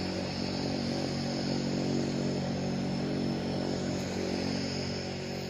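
Steady engine drone, a low hum with a hiss above it, starting to fade away near the end.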